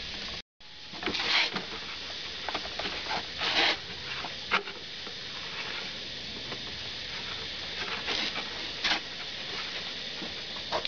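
A cloth wiping a plywood benchtop board with soapy water: a few short swishing strokes over a steady background hiss.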